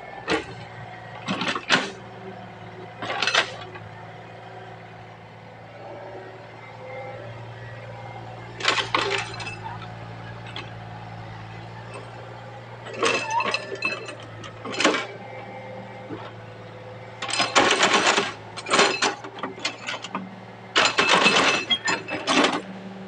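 Excavator engine running steadily, with repeated bursts of scraping and clinking from the bucket working the ground, coming thicker and longer after about seventeen seconds.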